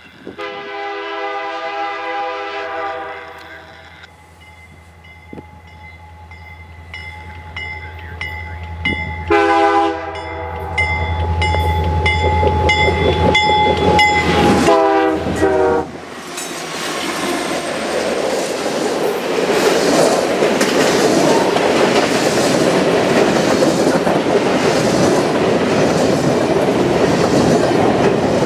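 Nathan K3H three-chime air horn on CN C40-8M 2414 sounding for a crossing: a long blast, another long blast about nine seconds in, and a last short blast that drops in pitch as the locomotives pass, over the low rumble of the diesels. From about sixteen seconds in, the train's freight cars roll by loudly, the wheels clacking over the rail joints.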